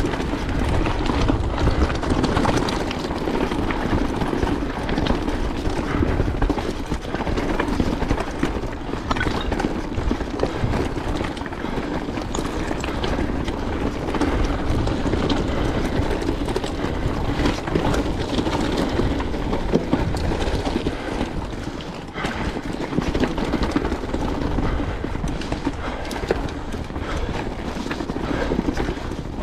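Mountain bike riding fast down a rocky trail: a steady clatter of tyres on stones and the bike rattling over bumps, with a low wind rumble on the camera microphone.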